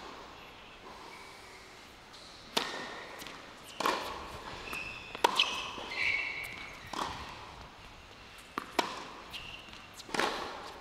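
Tennis ball struck back and forth in a baseline rally on a hard court: sharp racket hits and ball bounces about every second and a half, some louder and some softer.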